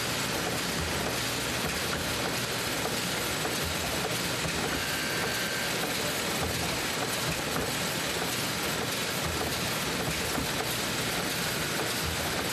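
Currency-sheet processing machinery running steadily, an even mechanical rush with a faint steady high tone over it, as it conveys uncut sheets of banknotes.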